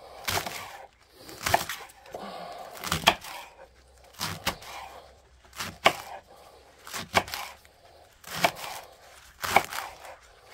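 Kitchen knife chopping a leek into pieces on a cutting board: a sharp chop about every second and a half, eight or so in all.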